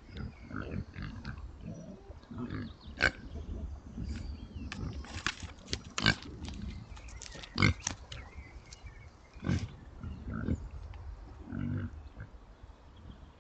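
A group of Oxford Sandy and Black pigs grunting steadily, with a handful of short, loud squeals.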